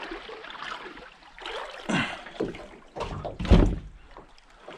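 A few knocks and thumps against a small metal boat's hull as it is handled in the shallows, the loudest and deepest about three and a half seconds in.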